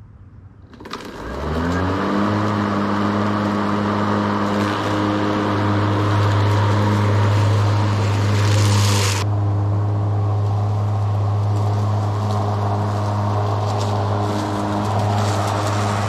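Remote-controlled lawn mower starting up: its motor spins up about a second in, rising in pitch, then runs at a steady hum with a hissing whir on top. The hiss drops away sharply about nine seconds in while the motor keeps running.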